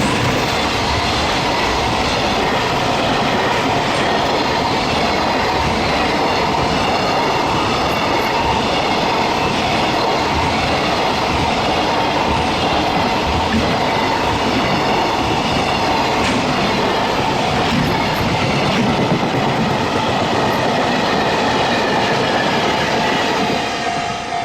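Freight train passing close by over a level crossing: a loud, steady rumble and clickety-clack of wagon wheels on the rails, with some wheel squeal. Near the end the train noise drops away and the crossing's warning bell comes through again, ringing steadily.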